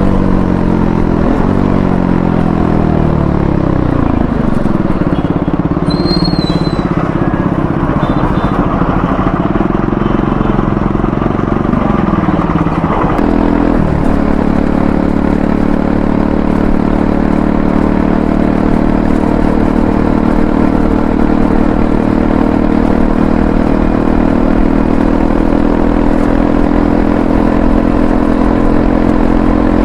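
Triumph Scrambler 400X's single-cylinder engine running as the bike is ridden. The note falls over the first few seconds and wavers, then changes abruptly about halfway through and holds a steady pitch for the rest.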